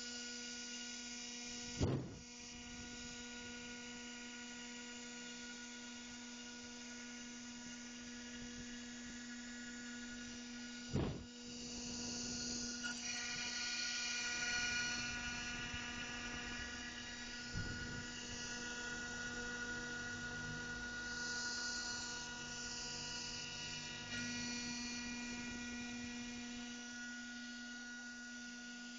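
Spindle motor of a Deshard J24 CNC machine running with a steady hum-like whine while it machines a circuit board. Two sharp knocks come about 2 and 11 seconds in. From about 12 seconds a rougher, louder noise joins the whine.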